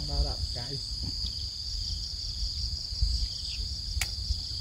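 Steady, high-pitched chorus of insects over a low rumble, with a brief voice-like call at the very start and a single click about four seconds in.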